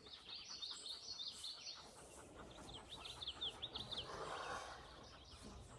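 A songbird calling faintly outdoors in runs of quick, high chirps, several sweeping downward, over a low background hiss.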